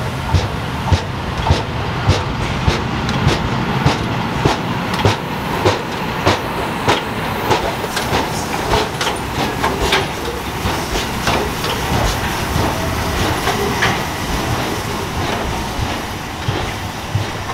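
Railway wheels rolling over rail joints: a steady running rumble with a regular clickety-clack, roughly two clicks a second.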